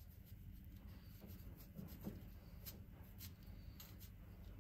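Faint scratching and light ticks of a knife blade slicing through orange peel, over a low steady hum.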